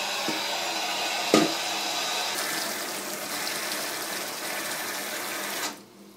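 Water running steadily from a tap into an empty dog water bowl, stopping abruptly near the end, with a single clunk about a second in.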